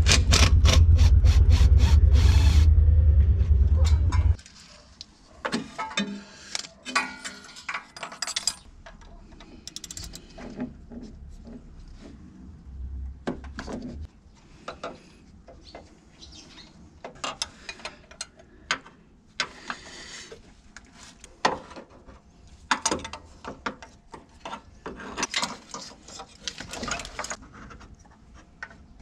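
Cordless power tool running on a bolt in the truck's engine bay for about four seconds, then cutting off. After that come scattered hand-ratchet clicks and the clink and knock of tools and metal parts as bolts are loosened.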